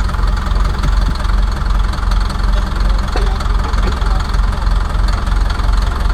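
Diesel engine of a 1977 Caterpillar D4 bulldozer running steadily at low speed with an even, deep pulse, as the dozer is driven slowly.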